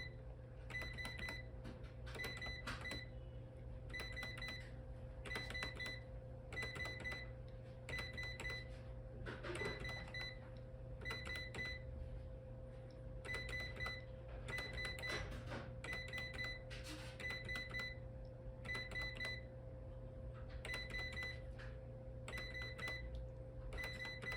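SAM4s electronic cash register keypad being pressed key by key, each press giving a click and a short high beep, about one a second with a few short pauses, as character codes are entered. A steady low hum runs underneath.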